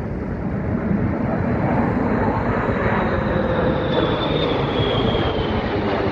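Jet engines of a B-1 bomber and its escorting fighter jets flying overhead: a steady rumbling roar, with a whine that falls in pitch about four seconds in as the formation passes.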